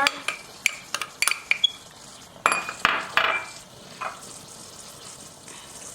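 A spoon tapping and clinking against a mixing bowl, a quick run of light taps with a short ring, then a few longer scraping sounds, as corn flour is spooned into the meatball mix.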